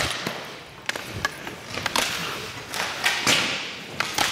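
Ice hockey drill sounds: several sharp knocks of pucks being shot and striking the goalie's pads and stick. Between them comes the scrape of skate blades on ice as the goalie pushes across and slides.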